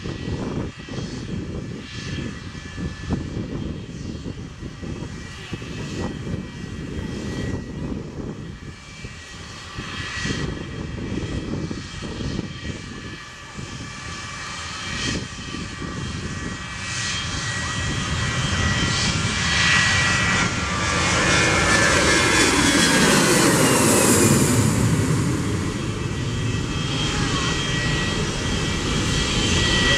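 Airbus A320-family twinjet's engines at takeoff power: a steady jet roar with a thin whine, over a gusty rumble in the first half. It grows louder as the airliner rolls down the runway and lifts off, peaking about twenty to twenty-five seconds in with a falling whine as it passes, then carries on as it climbs away.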